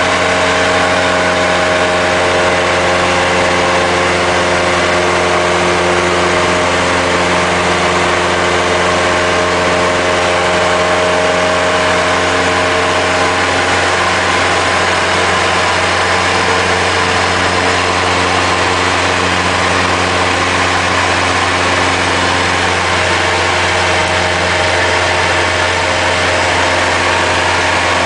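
Cessna light aircraft's piston engine and propeller droning steadily in cruise flight, with a dense rushing noise over a steady hum, heard from inside the cabin.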